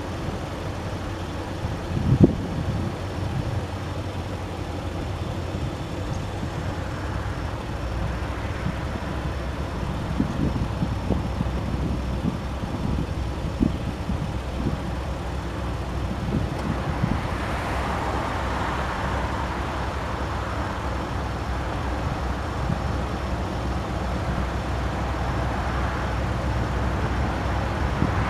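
Diesel locomotives running in the distance and slowly drawing nearer: a steady low engine rumble that grows gradually louder, mixed with road traffic. A single sharp knock comes about two seconds in.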